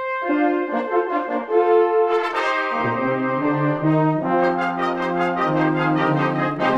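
Brass ensemble of trumpets, French horns and tubas playing a fanfare in sustained chords. Lower parts come in just after the start, over a held high note, and deep tuba notes join about three seconds in, filling out the full brass chord.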